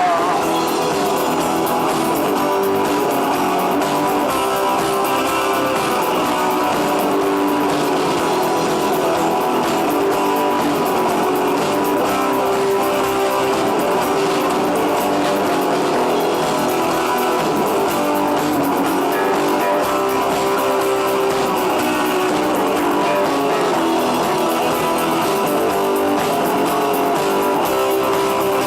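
Rock music: an instrumental passage of strummed guitars over bass, without singing.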